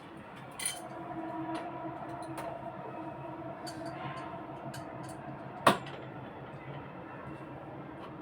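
Metal clinks and taps of spanners on an air conditioner's valve nuts, with one louder sharp metallic knock a little past halfway, over a steady hum.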